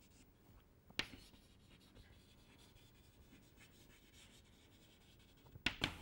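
Chalk writing on a chalkboard: faint scratching strokes, with a sharp tap of the chalk against the board about a second in and a few more taps near the end.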